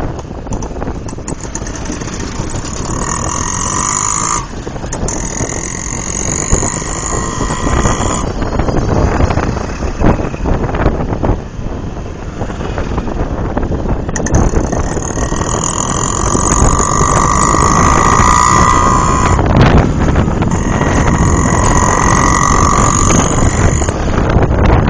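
Wind buffeting the microphone on a moving motorcycle, over the bike's running and the surrounding road traffic. A steady high whine comes and goes several times.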